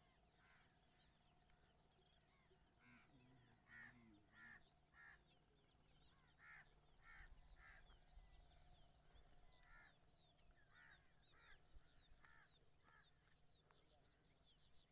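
Faint bird calls: short harsh notes, repeated in runs of two or three every few seconds. Under them, a thin high whine comes and goes.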